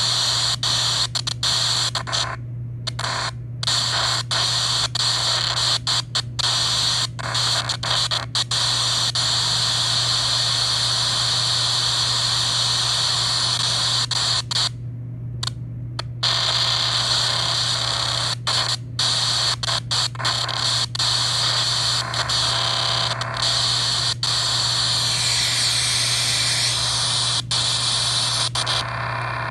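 Radio static hissing from a phone's speaker, from an RTL-SDR receiver running in the SDRoid app as it is tuned through the 462–465 MHz UHF range, over a steady low hum. The hiss cuts out briefly many times, for about a second near 15 s in.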